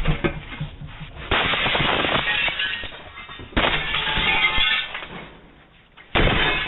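Three loud smashing crashes about two and a half seconds apart as a man vandalizes property, each starting suddenly and lasting about a second, heard through a doorbell camera's narrow-band microphone.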